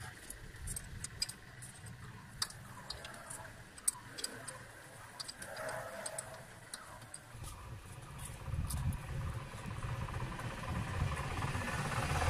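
Scattered light clicks and ticks of metal parts and tools being handled during timing-belt work on an engine, over a low rumble that grows louder in the last few seconds.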